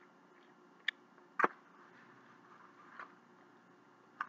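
A metal fork scraping and clinking on a plate while scooping up food: a small click just under a second in, one sharp, loud clack about a second and a half in, and a faint one near three seconds, over quiet room tone.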